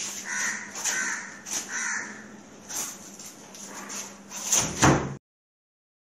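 A crow cawing three times in the background, with light clicks from a door, then a louder thud at the door about five seconds in before the sound cuts out.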